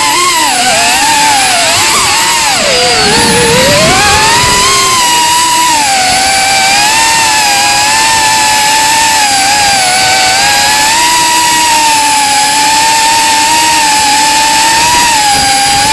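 Small FPV quadcopter's brushless motors whining, the pitch dipping about three seconds in as the throttle comes down, then holding fairly steady. The uploader calls the motor's sound strange.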